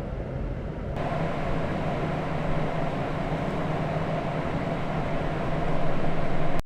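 A machine running steadily: a low hum under a noisy whir, changing abruptly about a second in and growing slightly louder toward the end.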